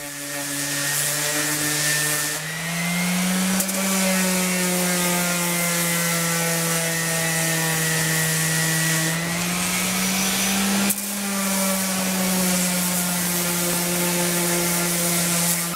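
Electric orbital sander running steadily against the face of a laminated wooden keel knee, a motor hum under a sanding hiss. Its pitch shifts up and back down a little a couple of times. This is a light final sanding to take out the marks left by the planer.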